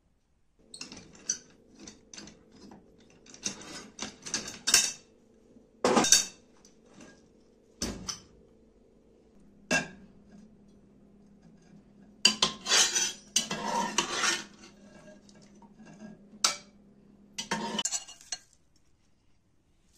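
Metal tongs clinking and scraping against an aluminium pressure-cooker pot and a bowl as cooked carrots are lifted out: sharp, irregular clinks in clusters. A steady low hum runs underneath and stops shortly before the end.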